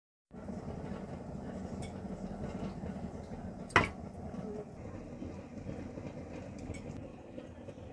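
Kitchen cookware handling over a steady low background hum, with one sharp knock or clink against the pan about four seconds in and a few faint ticks.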